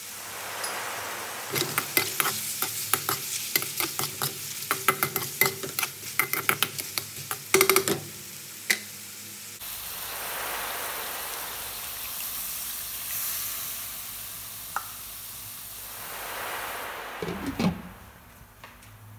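Chicken pieces sizzling in an oiled metal frying pan while being stirred, a utensil clicking and scraping against the pan many times, then a few seconds of steady sizzling. Near the end a glass lid clatters onto the pan and the sizzle turns quieter and muffled.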